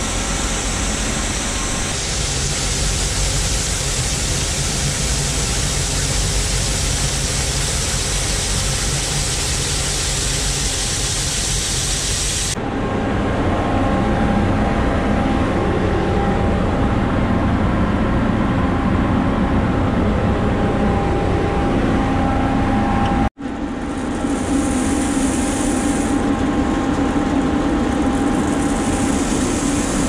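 Loud, steady machinery noise from corn-harvest equipment, in three stretches that change abruptly about 12 seconds in and again about 23 seconds in.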